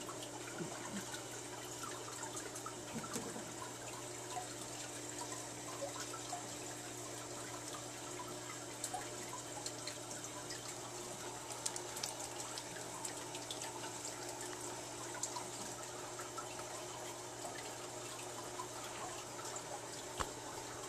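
Aquarium filter running in a turtle tank: water trickling steadily into the tank with scattered small drips, over a constant low hum.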